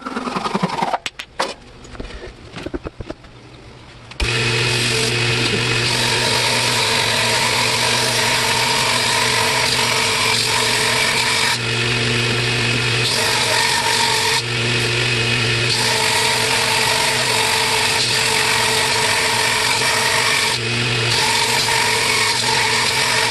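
A few knocks and handling sounds, then about four seconds in an electric power tool starts and runs steadily, trimming down a piece of hickory handle wood. The tone shifts briefly a few times as the wood is pressed against it.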